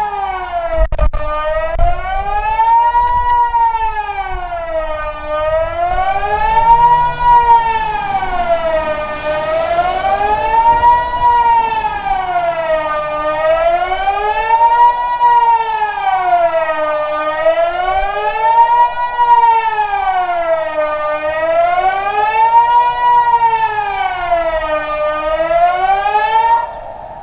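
Kockum Sonic Delta electronic civil-defence siren sounding the Swiss general alarm: a loud wailing tone that rises and falls smoothly about every four seconds. It cuts off abruptly near the end.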